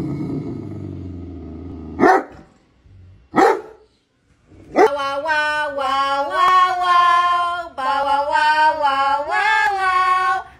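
Great Dane grumbling low, then barking twice about a second and a half apart. After a short pause, a voice sings a stepping melody from about five seconds in.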